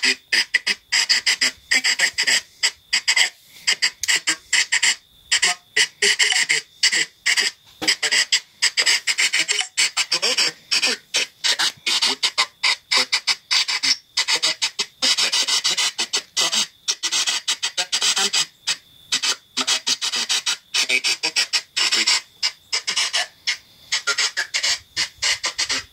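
Spirit box sweeping through radio frequencies at a slowed sweep speed: choppy bursts of radio static, several a second with brief silent gaps between them, and now and then a broken scrap of a voice or music.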